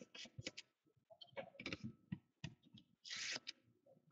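Trading cards being handled: a string of faint clicks and light rustles, with one short scratchy rustle a little after three seconds in.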